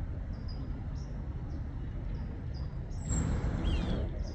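Outdoor ambience: a steady low rumble of distant traffic with a small bird chirping over it, about two short high chirps a second. About three seconds in, a louder rush of noise lasts about a second.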